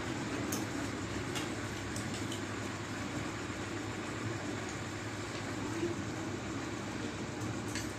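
Steady background noise, a constant rumbling hiss that never lets up, with a few faint clicks of chopsticks against plates and bowls.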